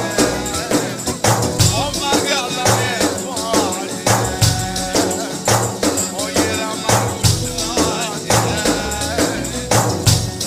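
Music played on a Korg Pa arranger keyboard's sound set: a steady drum beat with tambourine and bass under a lead melody that bends in pitch.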